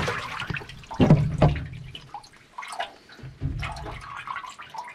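A freshly caught flounder dropped into a boat's live-well tank: a sudden splash at the start, then water sloshing and dripping as the fish moves about in the tank, with another strong splash about a second in.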